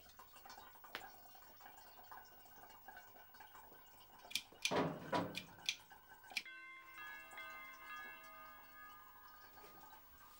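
A metal kettle clattering down onto the grate of a gas stove: a few clicks and a short clanking burst about halfway in. After a sudden cut, a steady ringing chord of several held tones fades out.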